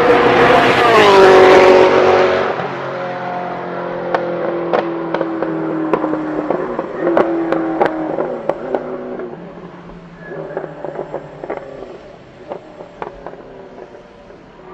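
Ferrari engine passing close by, loudest about one to two seconds in, its pitch dropping as it goes. Engine notes then carry on, sliding slowly lower, with scattered sharp clicks, and fade away over the last few seconds.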